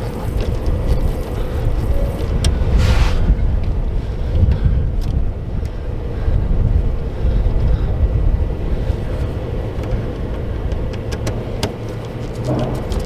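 A steady low motor rumble with a constant hum, as of an engine or machine running. About three seconds in there is a brief hiss.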